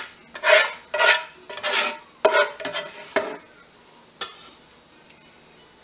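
A spoon scraping and scooping meat sauce out of a skillet: a run of short scrapes over the first three seconds and one more about four seconds in.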